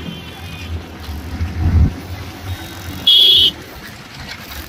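Motorcycle engines running with wind buffeting the microphone, and a heavier rumble just under two seconds in. About three seconds in, a short, shrill whistle blast of about half a second.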